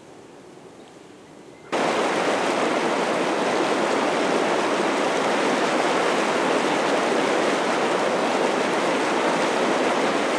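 Faint outdoor ambience, then about two seconds in a loud, steady rush of churning, bubbling hot-spring water starts abruptly.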